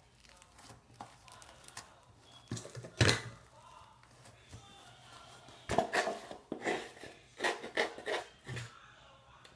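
Handling noises while slime is being kneaded with borax: one loud knock about three seconds in, then a run of several sharp knocks and rustles near the end.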